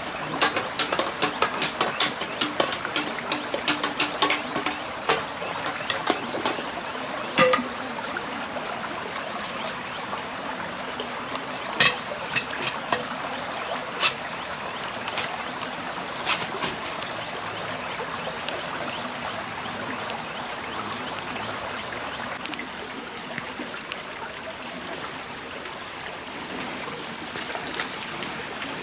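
Stream water running steadily, with a quick series of sharp clicks and knocks in the first several seconds and a few single knocks later.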